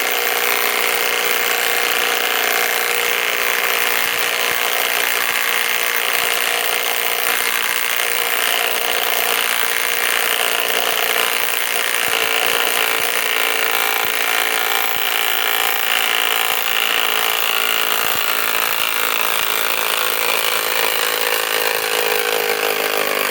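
Kobalt 3/8-inch cordless right-angle impact wrench hammering continuously while backing a long lag screw, about 10 inches, out of wood.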